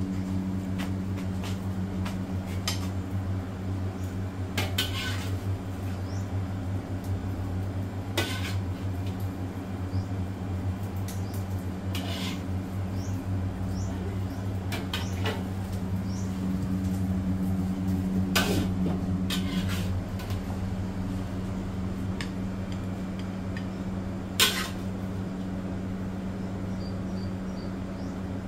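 Metal kitchenware clanking now and then, sharp single knocks several seconds apart, over a steady low hum.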